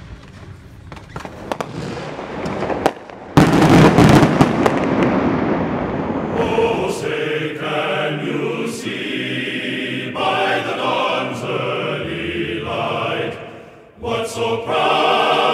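Fireworks popping and crackling, with a loud boom a little over three seconds in that fades away. From about six seconds in, choral chanting music takes over.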